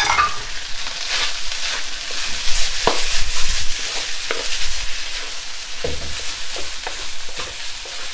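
Fried rice sizzling steadily in a hot wok as a wooden spatula stirs and tosses it, with short scrapes and knocks of the spatula against the wok, busiest about three seconds in.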